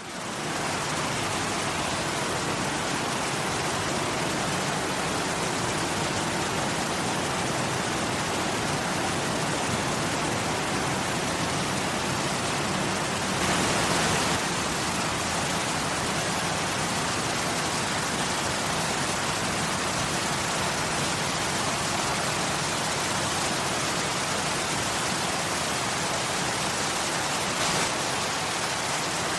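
Waterfall: a steady rush of falling water that fades in at the start and swells briefly about fourteen seconds in.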